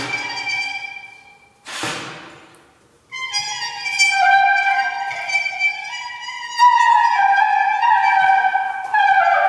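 Brass duet of hechtyphon and microtone-duplex: two short notes that each start sharply and die away, then from about three seconds in long held notes that step up in pitch about two-thirds of the way through.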